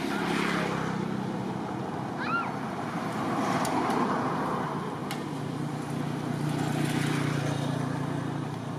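Motor traffic: a steady engine hum that swells and fades three times, with a short high chirp about two seconds in.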